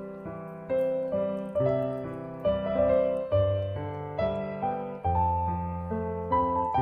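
Background piano music: a slow melody of struck notes, each fading away after it sounds.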